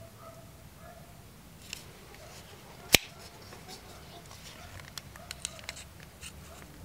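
Clicks and light taps of a plastic spring clamp being fitted onto a two-part plaster mould, with one loud, sharp click about three seconds in and a run of smaller clicks near the end.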